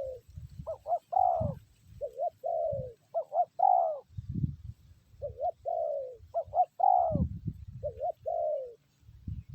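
Spotted doves cooing in repeated phrases of two to four notes, about six phrases, with a few low thumps between them.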